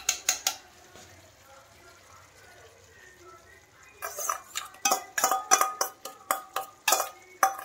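A steel spoon scraping and tapping against a small stainless-steel bowl, knocking whipped milk-skin cream out into a pan of curry. A few clinks come at the start, then a quick, uneven run of ringing clinks from about four seconds in.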